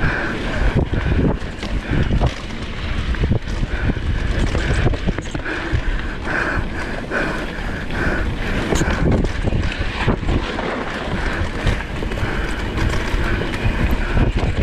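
Downhill mountain bike (Polygon Xquareone DH9) riding fast down a dirt forest trail, heard from a camera on the bike or rider: wind rushing over the microphone, with the tyres on dirt and a constant clatter and knocking of the bike over bumps.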